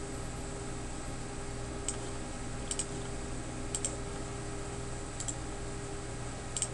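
A computer mouse clicks about five times, most of the clicks in quick pairs, over a steady background hum.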